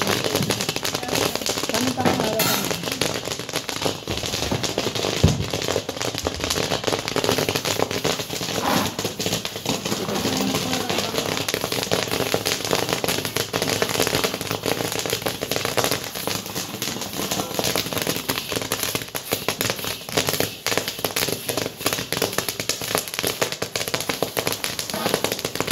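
Popcorn maize kernels popping in a covered pot, a dense, continuous crackle of sharp pops with a louder single pop about five seconds in.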